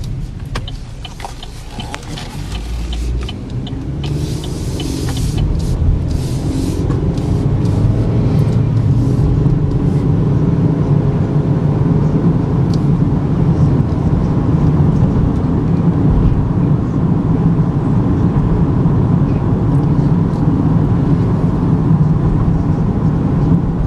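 2013 Chevy Equinox's 2.4-litre four-cylinder engine and tyres heard from inside the cabin as the car pulls away and picks up speed, then cruises with steady engine and road noise. A few sharp clicks come in the first seconds.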